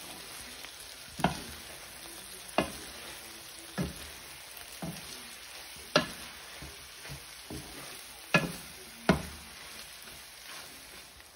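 Wooden spoon stirring and breaking up corned beef and sautéed vegetables in a non-stick frying pan. It knocks sharply against the pan about seven times at uneven intervals, over a light sizzle of frying.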